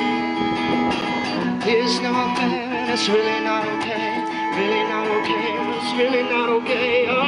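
Acoustic guitar music, strummed and plucked, with a wavering melody line held over it.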